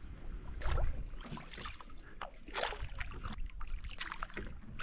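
Double-bladed kayak paddles dipping into calm water, with irregular splashes and drips about once a second as the paddlers stroke, over a steady low rumble.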